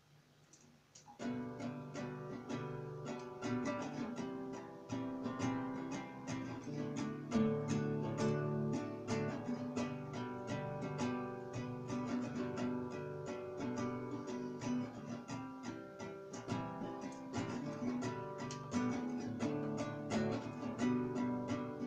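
Guitar strumming chords in a steady rhythm, starting about a second in: the instrumental intro before the singing.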